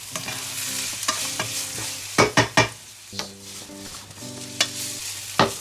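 Onions, carrots and garlic sizzling in hot oil in a pan as they are stirred, with sharp knocks of the utensil against the pan, a quick cluster about two seconds in and another near the end.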